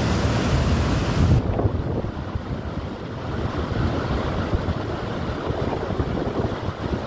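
Floodwater rushing over a weir and churning through the rapids below, a steady loud roar of water mixed with wind buffeting on the microphone. About a second and a half in, the hissing top of the sound drops away and the rumble carries on.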